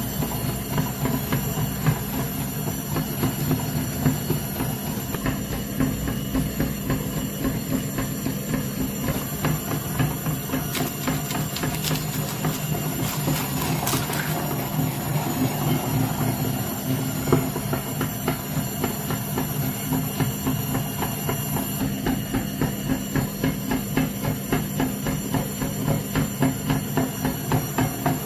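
Electric meat grinder running with a steady motor hum and fast, rhythmic crunching clicks as something is forced through it. Around the middle there is a brief high-pitched ringing squeal.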